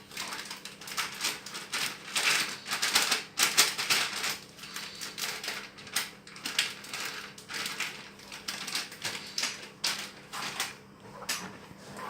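Corn starch and water mixture being stirred and worked in a bowl: a long run of quick, irregular scraping and crunching strokes.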